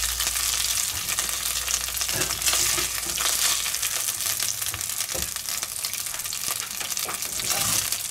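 Browned minced meat sizzling in hot fat in a cocotte while a slotted spatula scrapes and scoops it out, with scattered clicks of the spatula against the pot.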